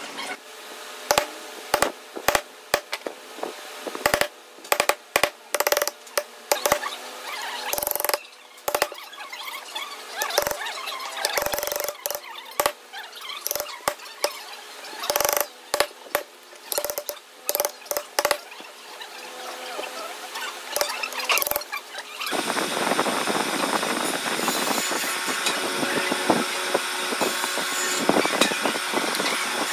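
Wooden mallet striking a steel chisel to chop a mortise into a wooden beam: sharp, irregular knocks, often in quick runs of several blows. About two-thirds of the way through the knocking stops and a steady rushing noise takes over.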